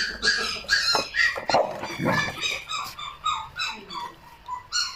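A dog yelping and whimpering in quick, repeated high cries, several a second, many falling in pitch. A few dull knocks come between about one and two seconds in.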